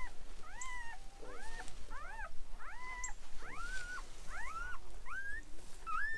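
Newborn Great Pyrenees puppy crying in a rapid series of short, high, kitten-like squeals, about two a second, each rising and falling in pitch; the last few are longer and flatter.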